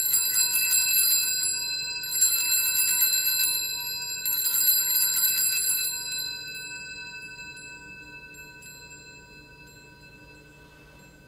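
A set of altar bells (sanctus bells) rung three times at the elevation of the host, marking the consecration. Each ring is a shimmering jangle of several high bell tones, and after the third ring the tones die away slowly over several seconds.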